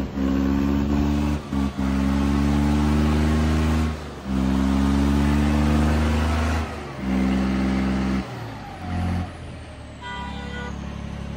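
John Deere 5210 tractor's three-cylinder diesel engine held at high revs under full load in a tug-of-war pull, its rear tyres spinning on the concrete. The engine note dips briefly several times as the throttle is eased and reapplied, then settles lower near the end.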